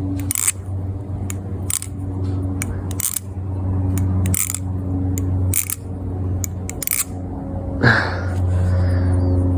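Atropos Spy titanium balisong being flipped open and closed: a series of sharp metallic clicks as the handles and blade swing and meet, roughly one a second, over a steady low hum.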